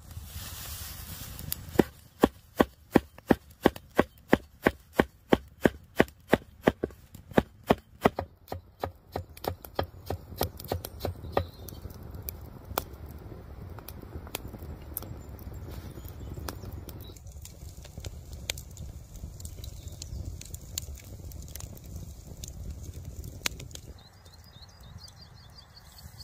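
Knife chopping fresh parsley: a long run of sharp, even strokes at about three a second, turning quicker and softer before stopping about twelve seconds in.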